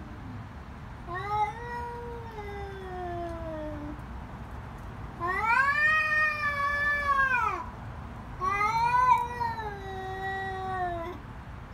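Cats yowling at each other in a face-off: three long, drawn-out caterwauls of two to three seconds each, each rising briefly and then falling in pitch. This is the threat yowling of a territorial standoff.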